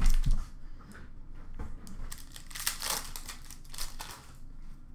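Foil hockey-card pack wrapper crinkling and tearing as it is handled and ripped open. There are a couple of dull bumps at the start, and the loudest crinkle comes near the middle.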